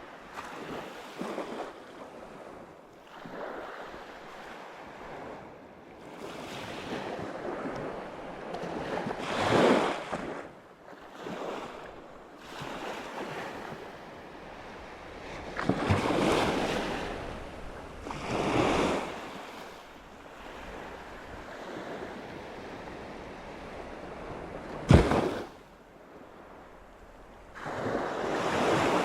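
Sea waves washing in, swelling and falling away every few seconds, with wind on the microphone. A single sharp knock about three-quarters of the way through.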